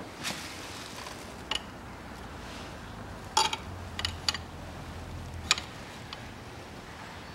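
Open-end spanner clinking on the steel union nuts of diesel high-pressure fuel pipes as they are fitted and tightened at the injectors: a few sharp metal clicks, the loudest about three and a half and five and a half seconds in.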